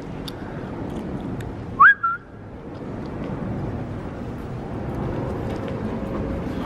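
Steady rushing background noise, broken about two seconds in by a brief, loud whistle-like note that swoops upward, followed by a short second note.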